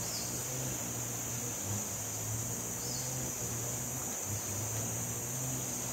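Tropical forest ambience: insects droning steadily in a high, even buzz over a low hum, with two short falling chirps, one at the start and one about three seconds in.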